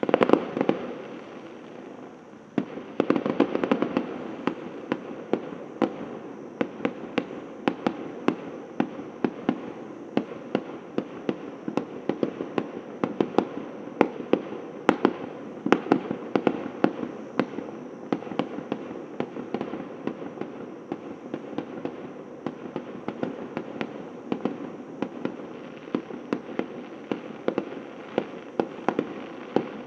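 Fireworks display: a loud burst right at the start and another about three seconds in, then a continuous rapid run of sharp bangs and cracks, several a second.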